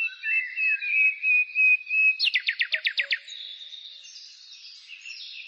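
Songbirds chirping and whistling. One bird holds a steady whistled note for about two seconds, then a quick run of about eight descending notes follows, and softer chirps continue after it.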